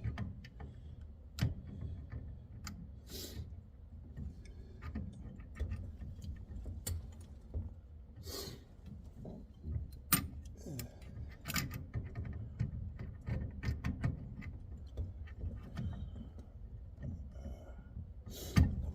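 Scattered clicks and light metallic knocks of hand tools and parts being handled during work on a truck's steering column, at irregular intervals over a low steady rumble.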